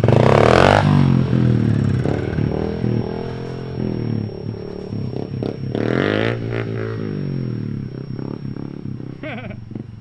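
Small pit bike engine revving, its pitch rising and falling as the rider opens and closes the throttle, with loud rough bursts near the start and about six seconds in.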